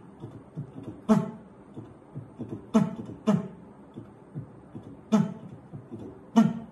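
Heart sounds imitated with the mouth: short 'lub-dub' beats at an irregular rhythm with no murmur between them. This is the pattern of silent mitral stenosis with atrial fibrillation, an irregular rhythm with the diastolic rumble gone.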